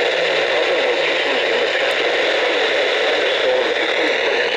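Radio static: a steady, loud hiss of noise from a weak or poorly tuned broadcast signal, with faint wavering traces buried in it. A low hum fades out in the first second or so.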